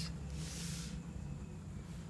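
Low steady background hum, with a brief soft hiss about half a second in.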